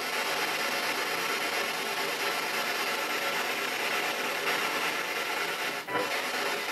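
Steady hissing static from a ghost box (spirit box), a radio-based device that hisses, with a brief break and a short fragment of sound about six seconds in.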